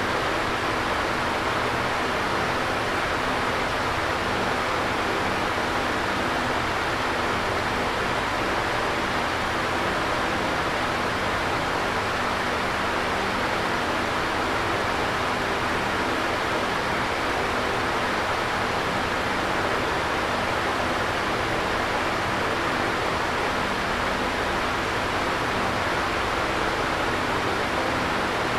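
Electric fan running steadily: a constant airy whoosh with a faint low hum beneath it.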